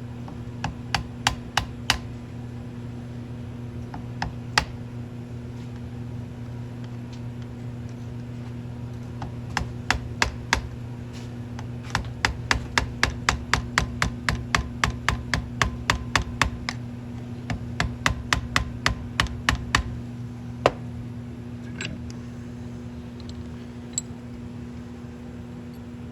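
Sharp clicks and taps of a tool working on a plastic and metal gas cap as it is pried apart, coming in runs of about two to three a second through the middle, with one louder click after. A steady low hum runs underneath.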